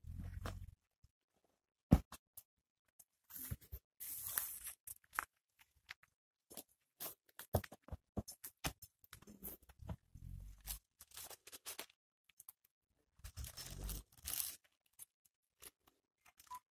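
Faint, scattered crackling and rustling, with three short low rumbles: at the start, about ten seconds in, and a longer one near the end.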